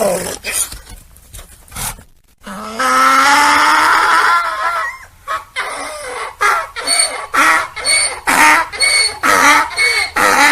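Donkey braying: one long drawn-out call, then a run of short, rhythmic pulses at about two a second.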